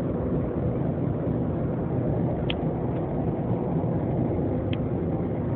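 Steady engine and road noise heard from inside a moving vehicle at expressway speed, with two short high chirps about two and a half and four and a half seconds in.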